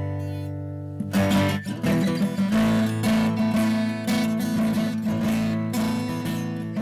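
Background music: acoustic guitar strumming chords, with one chord ringing and fading before the strumming picks up again about a second in.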